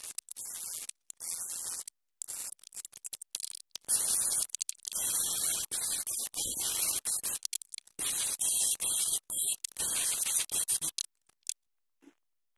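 Cordless drill spinning a wire cup brush against a rusty metal accelerator-pedal retaining clip, scouring off the rust in short bursts of harsh scratching. It grows louder about four seconds in and stops about a second before the end.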